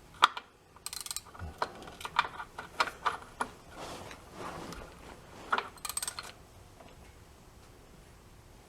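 A socket ratchet clicking in short runs, with metal-on-metal clinks, as a fitting is loosened to drain the air-cooled engine's oil. The clicking stops about six seconds in.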